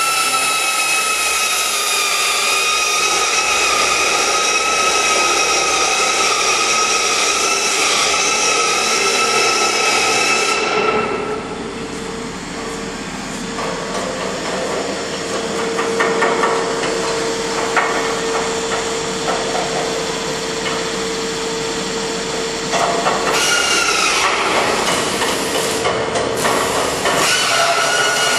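Workshop machinery noise: a steady high-pitched machine whine that drops out about ten seconds in, leaving a lower hum with scattered metal knocks and clanks, and comes back a few seconds before the end.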